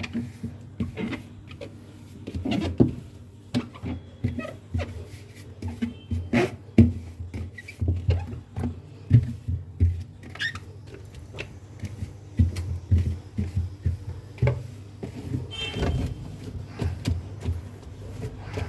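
Irregular knocks, light clatter and rubbing as the inside of a refrigerator is wiped down with a wet cloth.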